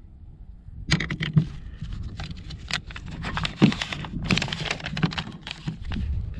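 Packaging and a paper envelope being handled in a plastic pistol case: a run of short clicks and crinkling rustles, thickest in the middle.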